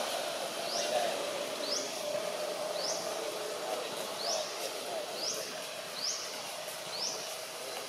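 Forest ambience: a short, high, rising chirp repeated about once a second, over a steady drone.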